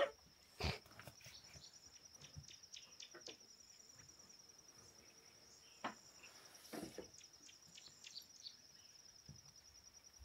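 Faint, steady high-pitched insect trill, with scattered short bird chirps and a couple of soft knocks.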